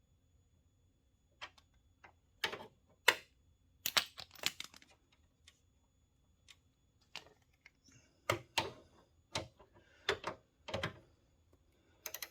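Irregular clicks and knocks from hand tools: a wrench ratcheting as nuts are tightened, with metal tools being handled, the clicks coming in short clusters with pauses between.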